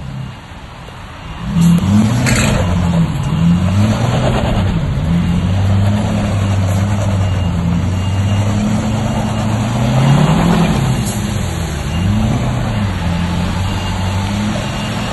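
2017 Ford F-250 King Ranch pickup's engine revving hard under load while it tows a stuck semi trailer out of mud on a strap; the pitch rises and falls again and again. It comes in loud about a second and a half in.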